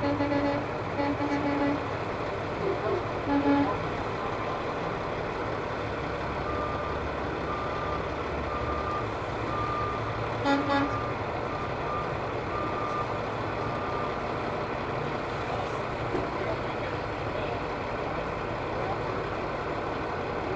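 Semi trucks' diesel engines rumbling past, with short truck horn blasts three times in the first few seconds and once more about ten seconds in. A steady series of short high beeps runs through the middle.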